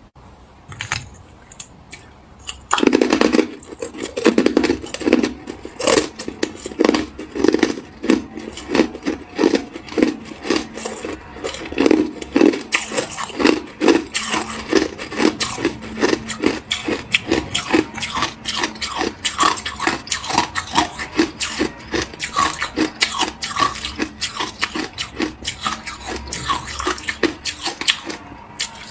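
Close-miked chewing of frozen matcha ice: crisp, rapid crunches at about three a second, starting a few seconds in after a few softer clicks.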